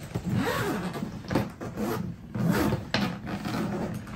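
Hard-shell suitcase being unlocked and opened by hand: a few sharp clicks and the rubbing and scraping of the plastic shell as the lid is lifted.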